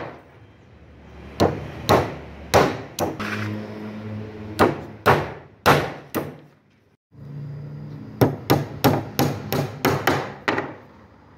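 Claw hammer driving wooden pegs into the joints of a wooden door frame: sharp blows about half a second apart, then, after a brief break, a quicker run of about ten strikes.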